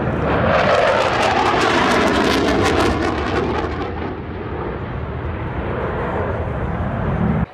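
Military jet aircraft making a low, fast show-of-force pass: a loud roar that swells, crackles at its peak in the first few seconds, then fades back to a steady rumble.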